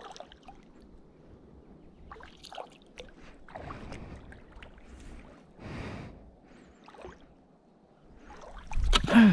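Shallow seawater swishing and sloshing, faint and on and off, as someone wades and moves a spear through it. Near the end comes a loud, sharp splash: a spear thrust striking into the water at a fish.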